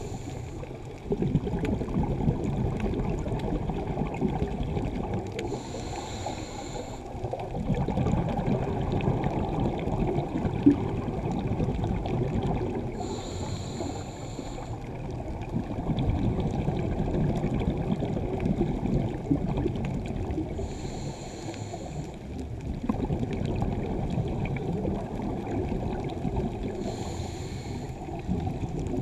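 Scuba diver breathing through a regulator underwater: a brief hissing inhale about every seven seconds, each followed by a long rumbling rush of exhaled bubbles.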